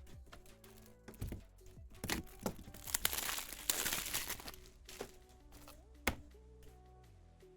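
Background music, with a trading-card pack's foil wrapper crinkling and tearing open about three seconds in, the loudest sound, plus scattered clicks from cards being handled.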